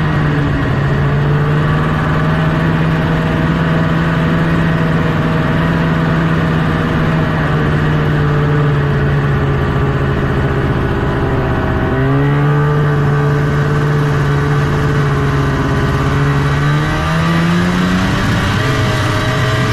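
1974 Arctic Cat Cheetah 340 snowmobile's Kawasaki 340 cc two-stroke engine running under way at a steady pitch. The note dips briefly about twelve seconds in, then rises as the throttle opens near the end.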